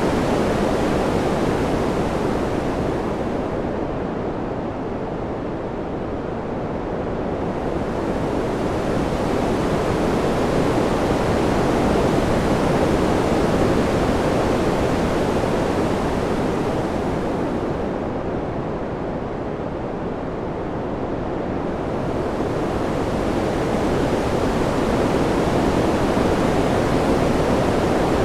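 Ambient wind-sound track: a steady rushing hiss that slowly dulls and eases, then swells back, twice over.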